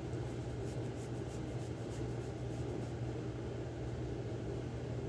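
Kitten purring close up, a steady low rumble, with faint rasping ticks of its tongue licking in the first couple of seconds.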